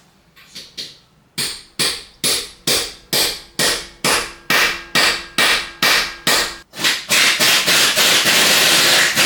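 A hammer strikes a steel socket to drive it onto a stubborn locking lug nut on a Jeep wheel. A few light taps give way to sharp, ringing metal-on-metal blows about two and a half a second. Near the end the blows run together into a continuous rattle.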